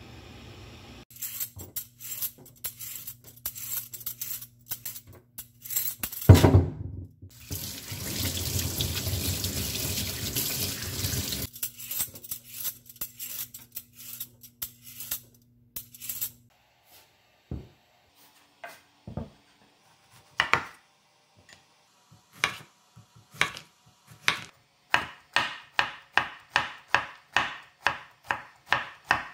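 Scraping and clatter at a stainless steel kitchen sink, with the tap running for about four seconds as a vegetable peeler is rinsed. Later, a kitchen knife cuts zucchini on a wooden cutting board: single cuts at first, then quick even strokes, about three a second, near the end.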